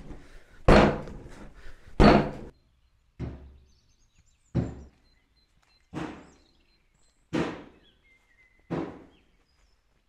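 Yeast dough being slapped down onto a wooden table over and over during slap-and-fold kneading, which stretches the dough to build its gluten. There is one dull thud about every second and a half, seven in all, the first two loudest. Faint bird chirps are heard in the middle.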